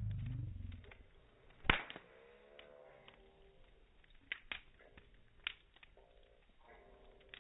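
Campfire crackling: scattered sharp pops and snaps, the loudest about two seconds in, with faint wavering tones between them.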